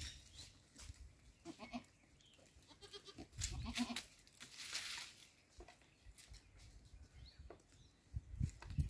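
Goats bleating, a couple of short calls, with scattered light taps of hooves on concrete and bursts of low rumbling noise, the loudest near the middle and again near the end.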